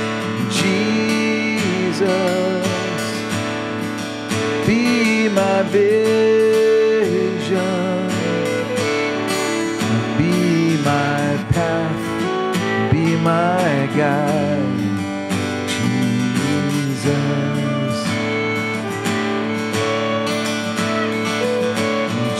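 Worship band music with a strummed acoustic guitar, held and wavering melody notes over it.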